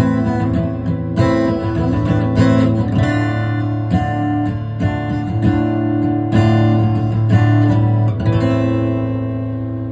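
Acoustic guitar strummed through the song's closing bars, ending on a final chord that rings out and fades over the last second and a half.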